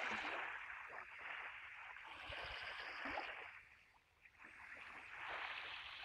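Small waves on a calm sea washing up the beach and drawing back: a soft hiss that swells, fades to a lull about four seconds in, then swells again.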